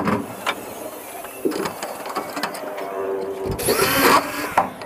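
Cordless drill running in short bursts as it drives screws through the spandrel ceiling panels, with scattered clicks and knocks from handling the panels.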